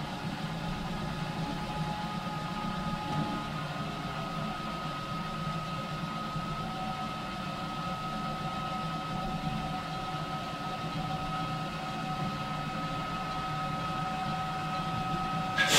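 Steam locomotive CPR 2024 standing still under steam: a steady low hum with a thin, even whine over it. A sudden loud burst of noise comes right at the very end.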